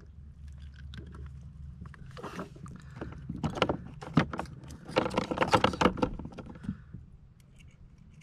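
Clicks, rattles and knocks of fishing gear and pliers handled on a plastic kayak while a hook is worked out of a small fish, busiest in the middle, over a low steady rumble.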